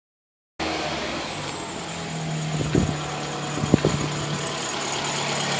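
Toyota RAV4 engine idling with a thin, steady high-pitched whistle running over it, and two short knocks in the middle. The owner takes the whistle for a failing alternator bearing, though it could also be the water pump.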